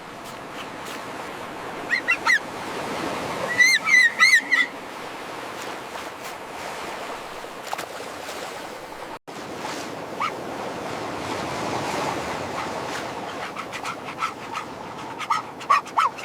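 Ocean surf washing on a beach, with short bursts of high, arching animal cries about two and four seconds in and again near the end.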